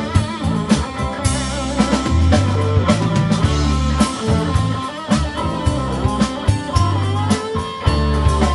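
Live rock band playing an instrumental passage: lead electric guitar with bent, wavering notes over a driving bass line and drum kit.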